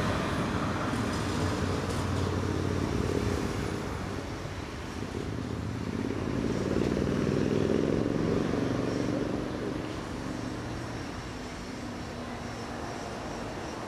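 A Bombardier Flexity Swift tram pulls away and runs off into the distance, its motor and wheel hum fading. About halfway through, another low motor hum swells up and dies away again.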